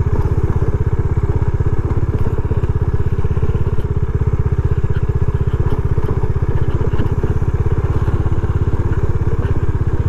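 Bajaj Dominar 400 motorcycle's single-cylinder engine running steadily under light throttle while being ridden, a fast, even beat of firing pulses with no revving.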